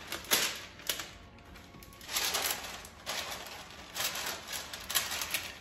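Parchment paper crinkling and rustling as it is pulled from its box and pressed into a square metal baking pan, in several short bursts with a sharp crackle near the start.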